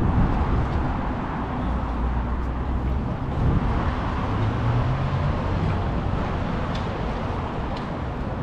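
Street traffic noise: motor vehicles running nearby, with a low engine hum that shifts higher in pitch about halfway through.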